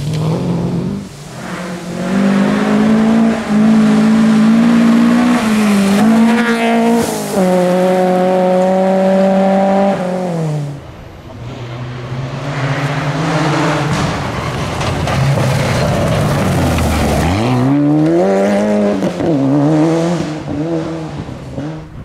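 Rally car engines at full throttle on a gravel stage: one car running hard with its engine note stepping through gear changes, falling away about ten seconds in. Then a second car approaches, its engine dipping low as it lifts off around the middle of the second half and climbing again before cutting off near the end.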